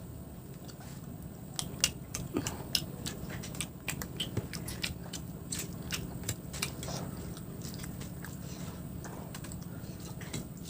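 A person biting and chewing crispy fried fish close to the microphone: a quick run of crunches and clicks from about one and a half seconds in, thinning out after about seven seconds.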